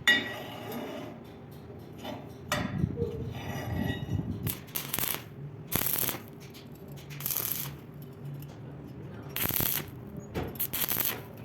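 Stick-welding arc struck in about six short bursts of crackling hiss, each under a second long: tack welds on thin square tube.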